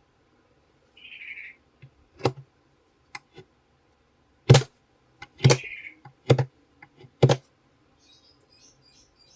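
Sharp clicks and knocks of small repair tools being handled and set down on a workbench, about five loud ones roughly a second apart in the second half, with two brief hisses.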